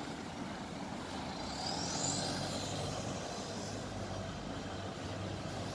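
Road traffic: a motor vehicle's engine running steadily, with a brief rising high-pitched squeal about two seconds in.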